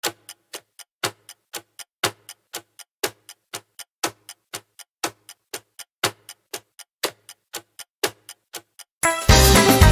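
Countdown-timer ticking sound effect: clock-like ticks about four a second, with a louder tick on each second, for about nine seconds. Near the end, upbeat background music starts.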